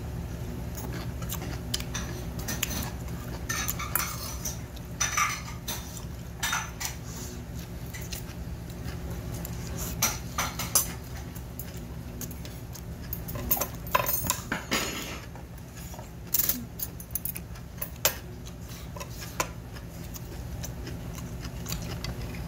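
Metal chopsticks and a spoon clinking and scraping against a stainless steel bowl of barley bibimbap, mixed with close-up mouth sounds of eating. These are irregular sharp clicks over a steady low hum.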